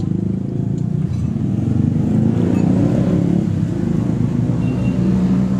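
A motor engine running steadily, a low droning hum that swells slightly a couple of seconds in.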